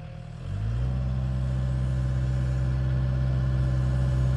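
Kubota mini excavator's diesel engine throttled up from idle: about half a second in the pitch rises quickly, and the engine then runs steadily at a higher, louder working speed.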